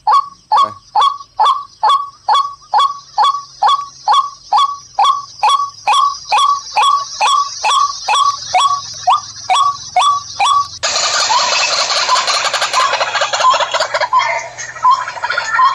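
E388 bird-lure loudspeaker playing a recorded bird call from its memory card, the same short falling call repeated about three times a second. About eleven seconds in, the playback switches abruptly to a different, denser recording of many birds calling at once.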